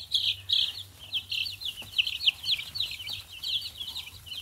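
Baby chicks peeping: many short, high, falling peeps overlapping at several a second.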